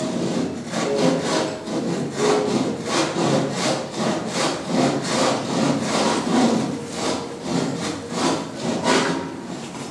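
Rhythmic rasping strokes, about two a second, like sawing or scraping on a hard surface.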